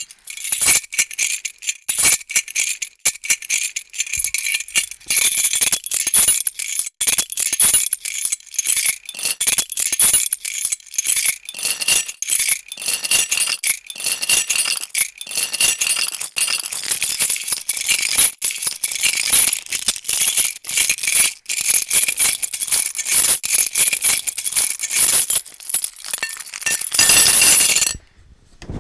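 A bunch of metal keys jangling and clinking continuously, a dense run of quick bright chinks. Near the end they are shaken steadily for about a second, then stop briefly.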